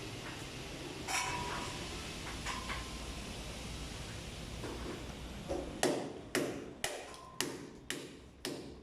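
A steady background hiss, then about six seconds in a quick series of about seven sharp knocks, roughly two a second, each dying away quickly.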